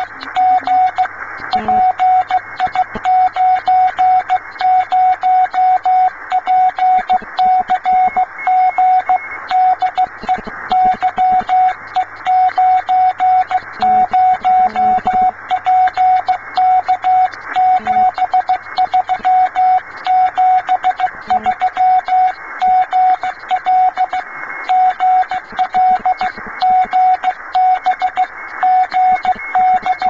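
Morse code (CW) received on an HF amateur transceiver tuned in the 15-metre band: a single steady beep keyed on and off in quick dots and dashes, over band hiss and static from the receiver's speaker.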